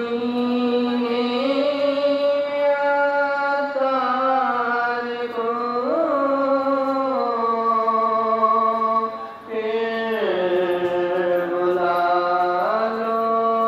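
Devotional salaam sung in long, drawn-out notes. Each note is held for a few seconds before the melody steps to a new pitch, with a quick rise and fall about halfway through.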